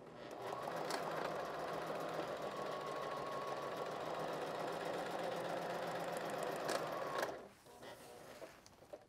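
Janome HD3000 sewing machine running at a steady speed, stitching a corner hem in thin waterproof fabric, for about seven seconds before it stops.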